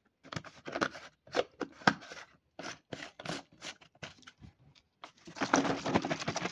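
Chopped beetroot and water sloshing in a lidded plastic jar shaken by hand, first in irregular splashes and knocks, then shaken hard and continuously from about five seconds in.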